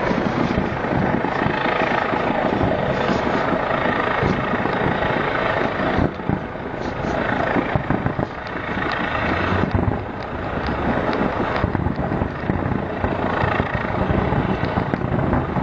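Aerial firework shells bursting in a continuous dense rumble, with many sharp cracks throughout.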